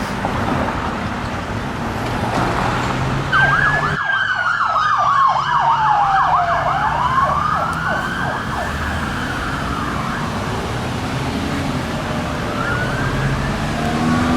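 Emergency vehicle sirens over street traffic: about three seconds in, a fast yelp and a slower wail start sounding together, the wail falling and then rising again, before both fade away near the end.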